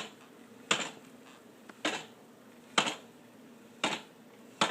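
Sharp single knocks about once a second from the drivetrain of a 2012 Honda CBR1000RR, in first gear with the clutch lever held in while the bike is moved. The owner has not heard the knock before and asks whether it is normal; it goes away in neutral.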